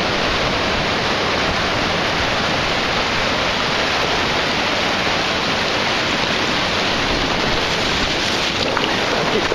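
Steady rush of waves washing into shallow beach surf, with water splashing around a wading dog.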